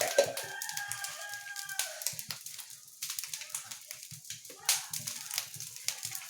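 Mustard seeds spluttering in hot coconut oil in a small kadai, a dense run of sharp pops and crackles. Near the start a rooster crows in the background for about two seconds.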